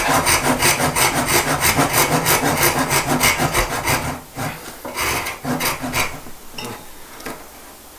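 Japanese hand saw cutting through a wooden spoon blank in quick, rhythmic strokes, then slowing to fewer, lighter strokes about halfway through.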